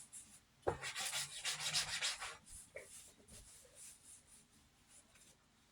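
Rustling, rubbing handling noise: a burst lasting about a second and a half, starting about a second in, then fainter scrapes and light clicks.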